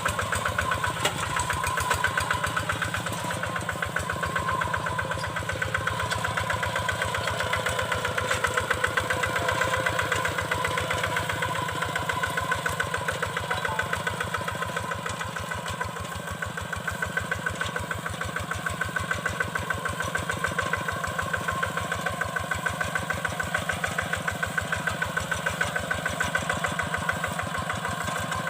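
Single-cylinder Kubota diesel engine of a hand tractor running steadily, with an even, rapid chugging beat.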